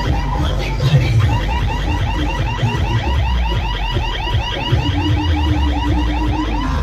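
A loud DJ sound system playing an electronic, alarm-like warbling chirp that repeats several times a second over heavy bass, with a low held note joining in about two-thirds of the way through.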